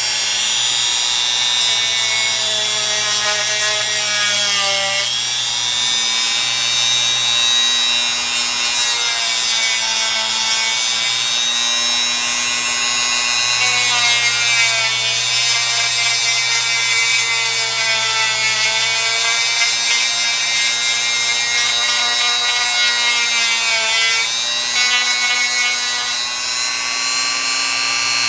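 Dremel rotary tool running continuously, grinding down the underside of a toy car to clear a dragging front end. It makes a steady high whine that sags in pitch a few times as the tool bites into the work.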